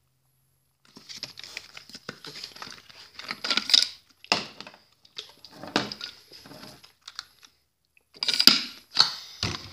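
Plastic bottle handled close to a phone's microphone: irregular rustling, scraping and clicking that starts about a second in, with several louder knocks in the second half.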